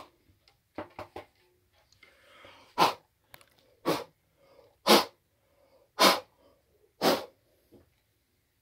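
Five short, sharp puffs of breath about a second apart, blowing sawdust out of a freshly drilled 3/8-inch straplock hole in a bass guitar body, after a few faint clicks near the start.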